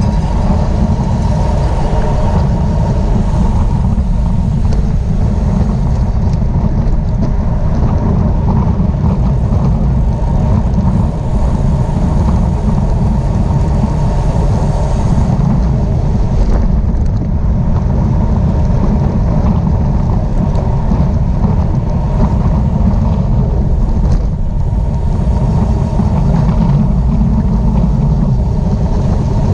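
Steady wind rush buffeting the microphone of a camera carried at racing speed on a bicycle, a loud, low rumble without a break.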